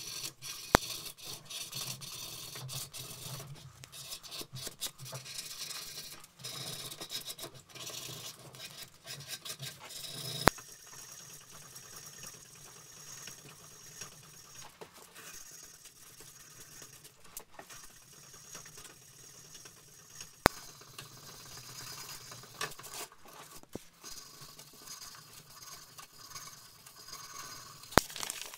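Abrasive strip sawing back and forth around a wooden hammer handle, shoe-shine style: a rhythmic rasping rub, louder for the first ten seconds or so and softer after. A few sharp single clicks stand out over it.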